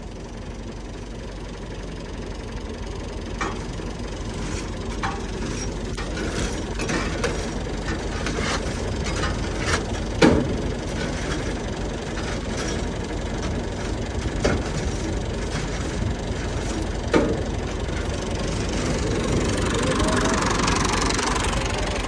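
Sharp metal knocks of a khurpa (hand hoe) striking the underside of a wheat thresher to knock out old stuck chaff, about seven spread-out strikes, the loudest about ten seconds in. A steady low engine hum runs underneath.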